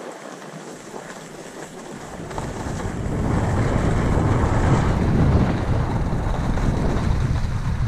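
Wind buffeting the microphone of a skier's camera on a downhill run, with skis hissing over groomed snow; the low rumble swells about two seconds in and stays loud.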